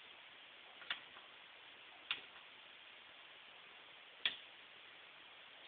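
Three single clicks of keys being pressed on the HP 5036A microprocessor board's keypad, spaced irregularly over a faint steady hiss.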